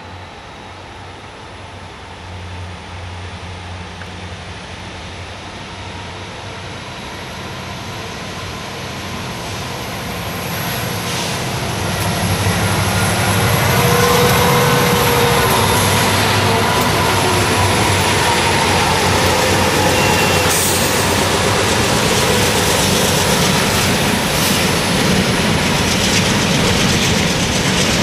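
Three diesel locomotives led by an EMD SD70I working hard up a grade, growing steadily louder as they approach and pass, with a whine that drifts in pitch as the units go by. The freight cars then roll past with a steady rumble and rattle.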